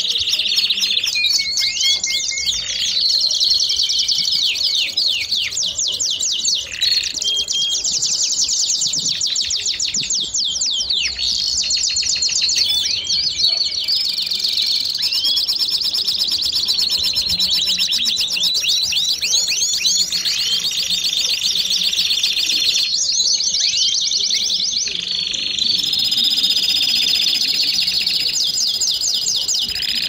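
Belgian canary singing a long unbroken song of fast trills, quick rising and falling sweeps and held whistled notes.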